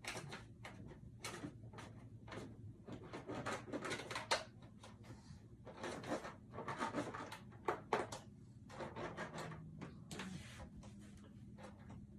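Cutlery cutting up pancakes: repeated short scrapes and clicks, coming in irregular clusters.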